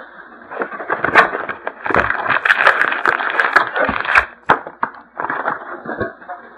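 Trading card packaging being torn open and handled: plastic wrap crinkling and tearing, with many sharp crackles and snaps.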